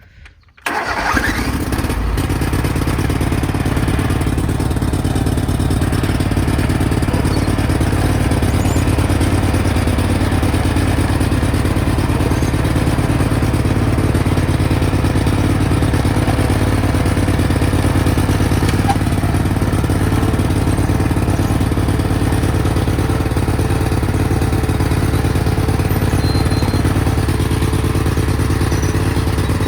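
Cub Cadet 1861 garden tractor's 18 hp Kohler Command V-twin engine starting about half a second in, then running steadily.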